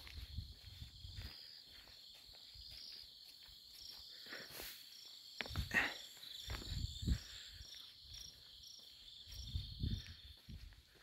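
Insects trilling steadily in a high band, with a regular chirp pulsing about twice a second through the second half. Low rustling thumps come and go near the microphone, loudest a little past the middle.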